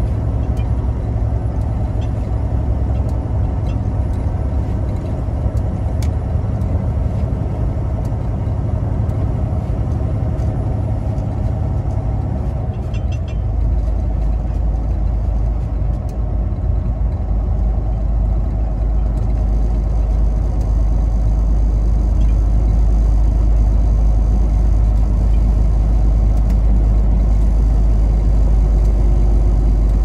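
Semi-truck engine and road noise heard from inside the cab while driving on a snow-covered highway: a steady low drone that shifts to a deeper note about halfway through.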